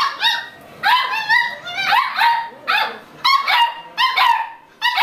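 Beagle puppies barking and yipping: short, high barks that drop in pitch, coming rapidly one after another, two or three a second.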